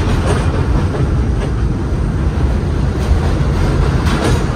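New York subway train rolling past close alongside the platform: a steady, loud rumble of wheels and running gear, with a few clicks as the wheels cross rail joints.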